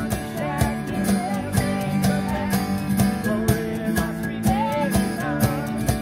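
Acoustic bluegrass-style string band playing: several acoustic guitars strumming a steady beat under a bowed fiddle melody, with voices singing.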